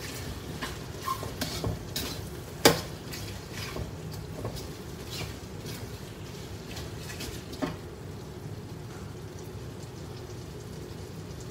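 Slotted metal spatula scraping and knocking against a pan as thick chilli-coated pieces of fried beef lung are stirred, over a steady low hum. The sharpest knock comes nearly three seconds in, and another just before eight seconds.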